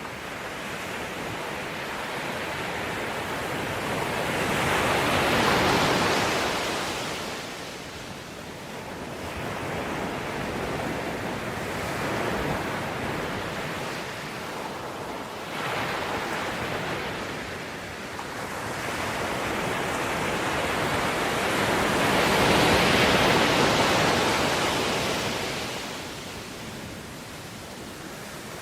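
Ocean surf: waves rushing in and washing back in slow swells, two large surges with smaller ones between.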